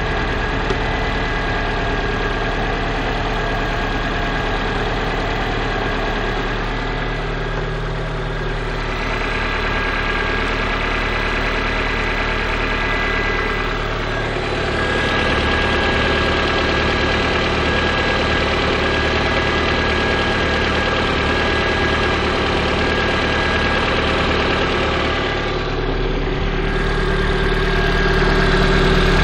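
Lada Priora's VAZ-21126 1.6-litre sixteen-valve engine idling cold with a knock, which the owner takes for piston knock. The sound of the engine changes character a few times.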